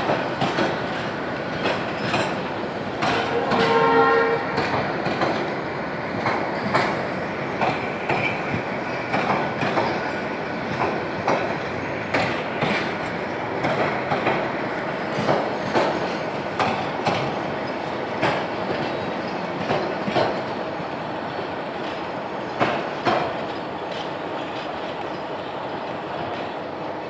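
Intercity passenger train coaches rolling past, wheels clicking over rail joints in a steady rhythm over a running rumble that eases as the train pulls away. A train horn sounds once, for about a second, about three seconds in.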